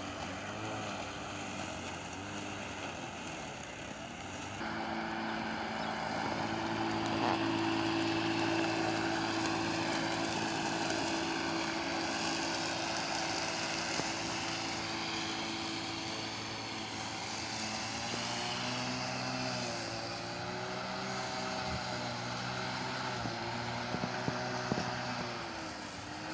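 Brushless motor and spinning blade of a 40V cordless walk-behind lawn mower running while cutting grass: a steady hum with a whine over it. In the second half its pitch sags and recovers several times under the load of the grass.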